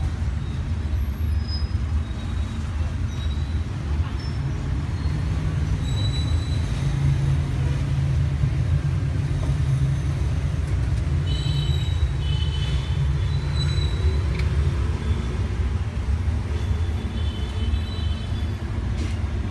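Busy street traffic: motorbike and car engines passing close by, making a steady low rumble.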